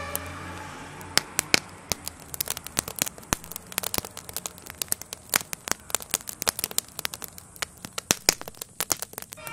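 Burning wooden garden shed crackling and popping: sharp, irregular cracks, several a second, some much louder than the rest.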